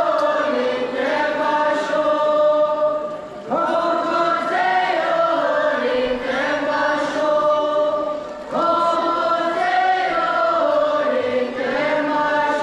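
A group of boys and girls singing together in unison, long held notes in phrases of about five seconds, each new phrase starting after a brief break.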